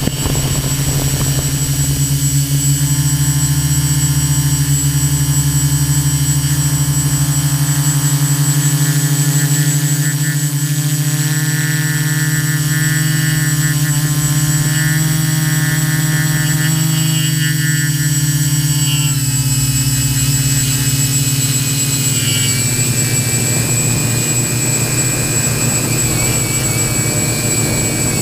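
Quadcopter's electric motors and propellers whining steadily in flight, heard close up from the camera carried on the craft. The pitch shifts a little about two-thirds of the way through as the throttle changes.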